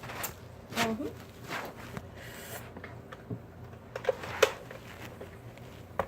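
Scattered light clicks and taps of kitchen utensils being handled against a plastic cup of ice cream, with two sharper ticks about four seconds in and a loud click at the very end.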